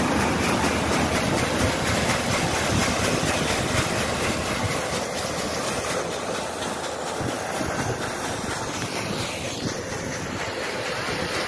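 Tractor-driven groundnut decorticator (peanut shelling machine) running at working speed: a steady, dense mechanical clatter from the belt-driven shelling drum and shaking sieve as shelled groundnuts pour out.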